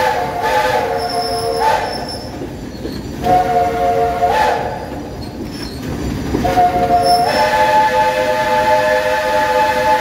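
A 1928 Shay geared steam locomotive's whistle sounds a chord of several notes in three blasts: a short one, a second short one, and a long one near the end. Each blast starts on a lower chord and steps up in pitch partway through. The train's running rumble fills the gaps between blasts.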